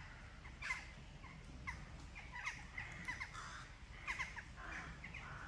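Short, sharp animal calls, several at a time in quick groups about once a second, over a low steady rumble.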